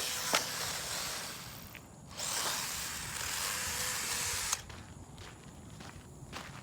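Traxxas 1/16 Slash RC truck's electric motor running under throttle, its wheels spinning in loose dirt as it works to get free, in two bursts with a short pause near two seconds; the second burst cuts off suddenly about four and a half seconds in.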